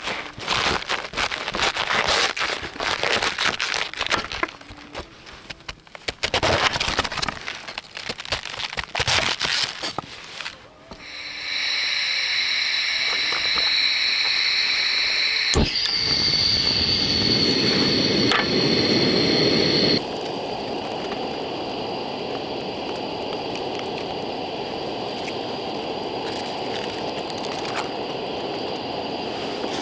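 A kitchen knife cuts through a whole raw cabbage on a wooden cutting board in a run of crisp, uneven crunches. About 11 s in, a portable gas burner under a pan takes over with a steady hiss and a thin high whistle. About 20 s in, the sound drops abruptly to a lower, even hiss as the cabbage heats in the pan of water.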